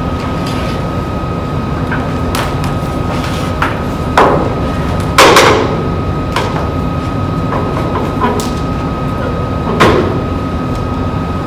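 Irregular knocks and clunks as a table tennis robot and its ball-catch net are handled, the loudest about five seconds in, over a steady hum with a thin high tone.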